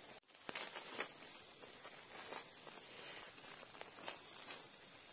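Forest insects chirring in a steady, high, unbroken tone that drops out for a moment at the very start. Under it come a few soft scrapes of a knife digging in damp leaf litter.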